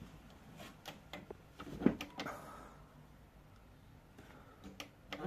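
A string of clicks and knocks from a washing machine being handled, the loudest about two seconds in, with a faint low hum under them for a couple of seconds.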